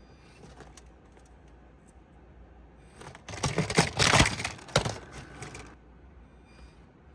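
Axial SCX24 mini crawler clattering and scraping over the course: a burst of rapid rattling clicks starting about three seconds in and lasting about two and a half seconds, loudest in the middle, over a faint steady hum.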